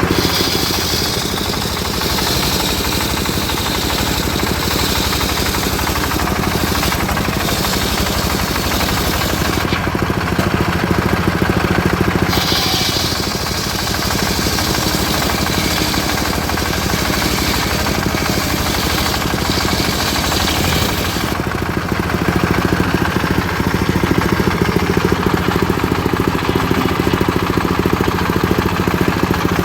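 Homemade circular sawmill running steadily on its engine, the blade ripping through old teak in two long stretches.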